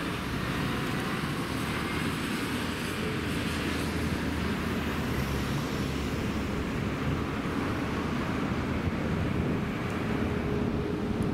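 Steady noise of road traffic passing by.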